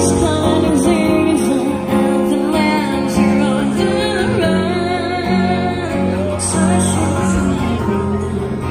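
A woman singing a slow melody into a microphone, accompanied by acoustic guitar, heard through the venue's PA.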